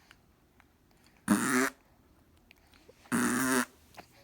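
Two raspy fart noises, each about half a second long, the first about a second in and the second near the end.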